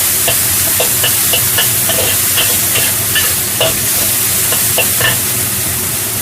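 Minced pork with garlic and ginger sizzling in a hot wok while a spatula scrapes and taps the pan in quick, irregular strokes: the aromatics being stir-fried until fragrant.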